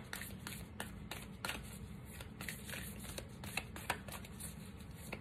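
A deck of heart-shaped oracle cards being shuffled by hand: quick, irregular card slaps and flicks, a few a second, over a soft papery rustle.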